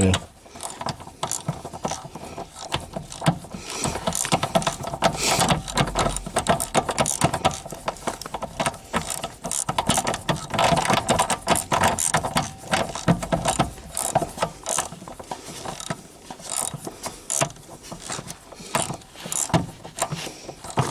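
Hand socket ratchet clicking in rapid runs while bolts are loosened, with scattered knocks.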